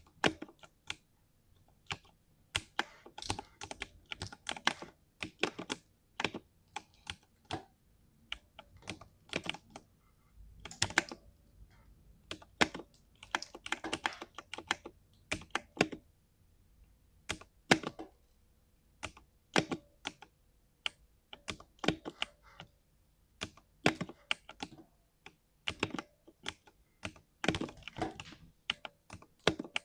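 Irregular clicking at a computer desk: mechanical keyboard keys struck singly and in short quick runs, mixed with computer mouse button clicks.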